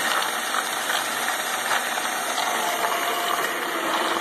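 Homemade ball mill running with its star-roller drum turning on roller wheels: a steady mechanical whir with faint scattered clicks.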